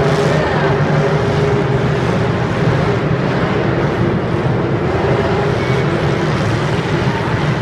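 Engines of many demolition derby cars running together in a loud, steady din, with no single crash standing out.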